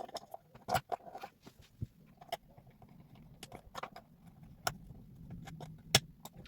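Scattered light clicks and taps of small plastic parts being handled as a 9-gram micro servo is fitted into a 3D-printed camera pod. About half a dozen sharper clicks stand out, irregularly spaced.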